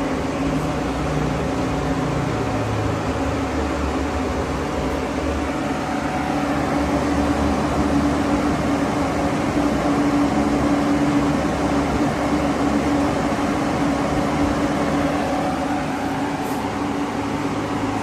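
Homemade Peltier air conditioner running: its fans and coolant pump make a steady whirring with a constant low hum.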